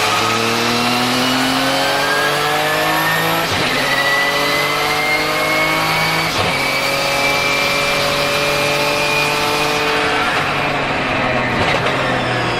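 Twin-turbocharged 3.9-litre flat-six of a Porsche 997 GT2 RSR race car, heard from inside the car, accelerating hard with the engine pitch climbing through the gears. Three quick sequential-gearbox upshifts break the climb, at about three and a half, six and a half and eleven and a half seconds in, and a thin high turbo whistle rises alongside the engine.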